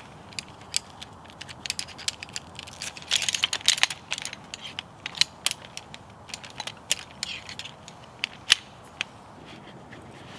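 Wood crackling and snapping: irregular sharp clicks with a dense cluster about three seconds in.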